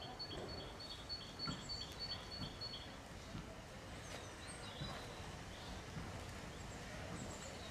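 BR Standard Class 4 2-6-0 steam locomotive moving slowly tender-first, a quiet low rumble with a few soft knocks. A small bird sings a quick repeated two-note phrase for the first three seconds, with a few more short chirps later.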